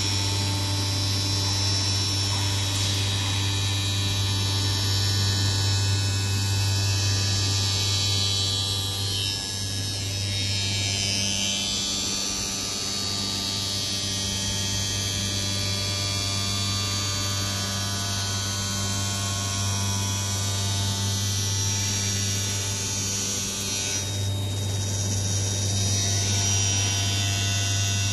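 CNC glass edging machine running: a steady low hum with a higher hiss over it that changes about ten seconds in and again near the end.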